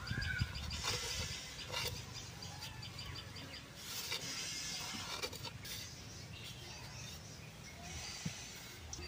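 Quiet outdoor ambience with birds chirping faintly, a short rising call right at the start, and a few soft clicks of hands moving sliced onion and garlic onto a stone grinding slab.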